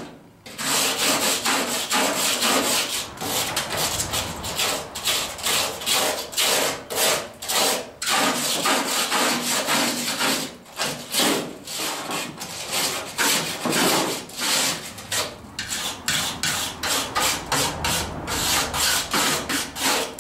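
A hand tool scraped back and forth over the painted sheet-steel floor pan of a 1985 Chevy K10 in quick, irregular strokes, about two or three a second, with a short pause right at the start. The paint is being worked off to find the spot welds.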